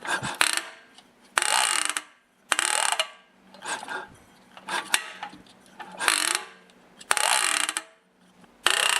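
Briggs & Stratton snowblower engine being turned over again and again, a burst of mechanical clatter about once a second, with a click after a few turns. The click comes from teeth stripped off its plastic camshaft gear.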